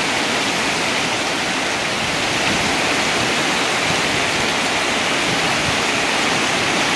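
Heavy storm rain falling steadily on a paved yard, leaves and plant pots, with a stream of runoff pouring off the roof edge.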